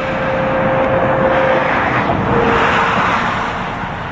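Road traffic on an interstate highway: a vehicle passing by, its tyre and engine noise swelling to a peak a second or two in and easing off near the end.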